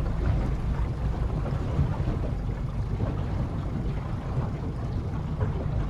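Wind buffeting the microphone on a small boat at sea, with water against the hull and a low steady rumble underneath.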